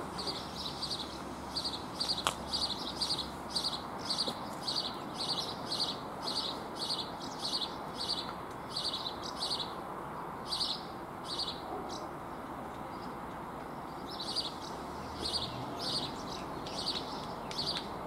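A small bird chirping over and over, about two short high chirps a second, falling silent for a couple of seconds after the middle and then starting again, over a steady low background noise. A single sharp click sounds about two seconds in.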